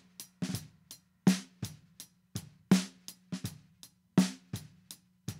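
Recorded snare drum playing back through a tape-machine emulation plugin at 15 inches per second, adding tape saturation and fullness. Loud snare hits come about every one and a half seconds, with softer drum and cymbal hits between them.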